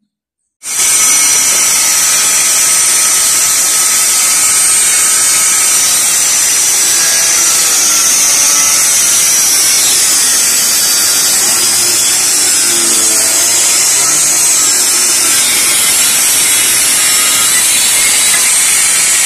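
A power tool running continuously, a loud steady whir with a strong high hiss that cuts in sharply about half a second in.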